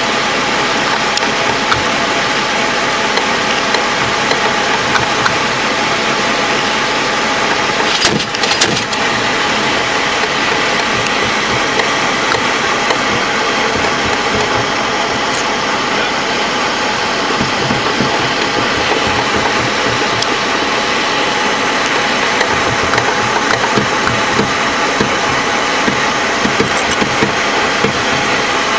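LAV III armoured vehicle's diesel engine running steadily at idle, close by. A brief cluster of knocks comes about eight seconds in.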